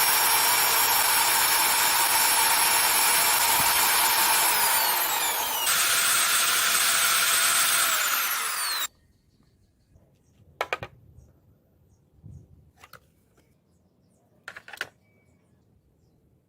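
A small electric motor whining loudly for about nine seconds. Its tones shift and slide down about halfway through, and it cuts off suddenly, followed by a few faint clicks.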